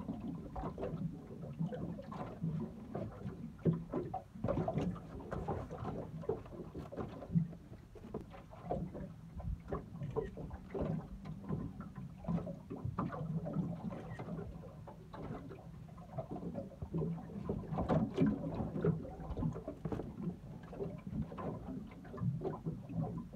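Handling noises on a small boat: irregular knocks, bumps and rustling against the hull while a fish is handled on a drag mat.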